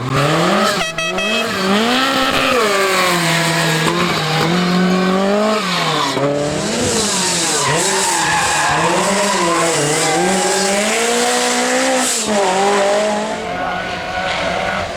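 Lancia 037 rally car's supercharged four-cylinder engine at racing speed, its pitch climbing and dropping again and again as it accelerates, shifts and lifts off.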